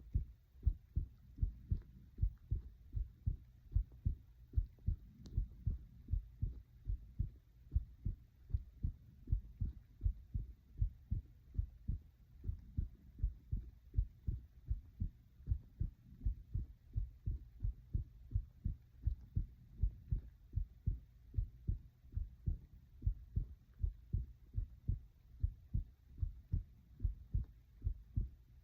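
A person's heart beating, a steady, regular train of low beats.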